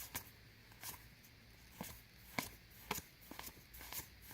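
Trading cards being handled and flipped through one by one: faint, irregular clicks and taps of card stock, about seven in all.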